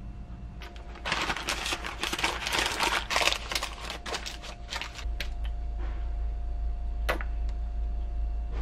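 Baking paper crinkling and rustling as it is handled in a pan, for about four seconds. A steady low hum then sets in, with a couple of sharp ticks.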